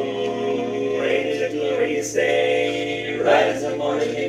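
Male barbershop quartet singing a cappella in close harmony, holding long chords that change about every second.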